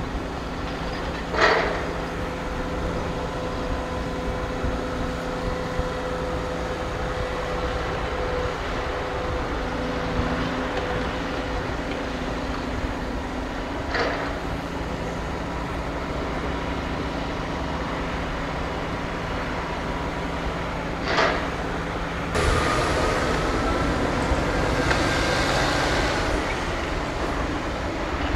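Construction-site machinery running with a steady, even drone, broken by three short, sharp metallic clanks. About three-quarters of the way through the sound gets louder and a faint rising whine comes in.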